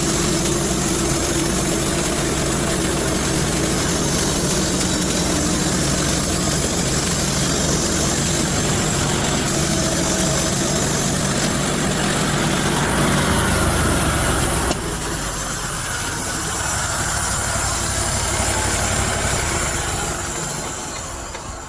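Gas-engine sawmill running steadily through a cut in a mesquite log, being pushed hard because its cable had slipped off its wheel and was dragging. About 15 seconds in the low engine rumble drops off suddenly, and near the end the sound fades away.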